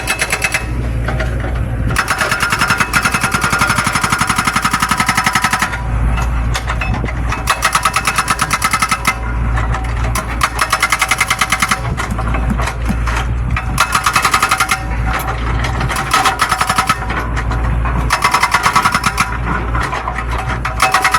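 Excavator-mounted hydraulic breaker hammering in rapid repeated blows, in runs of a few seconds with short pauses between them, the excavator's diesel engine running underneath.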